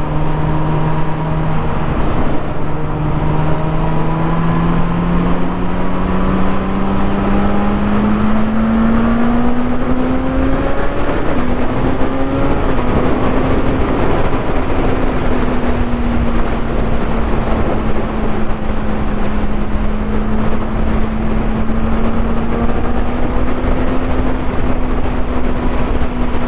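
Suzuki GSX-S1000's inline-four engine under hard acceleration at motorway speed. The note rises steadily for about ten seconds, dips briefly about eleven seconds in, then holds a steady high cruise. Heavy wind rush on the unfaired bike runs under the engine throughout.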